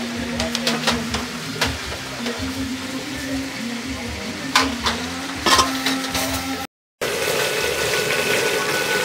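Food frying in a pan as it is stirred, with sharp scrapes and taps of a utensil against the pan. Near the end it cuts off abruptly and a different steady sound begins.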